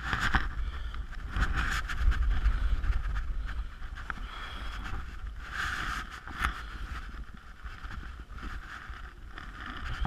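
Strong wind buffeting the microphone with a deep rumble that swells in gusts, and nylon tent fabric and clothing rustling and flapping in irregular bursts.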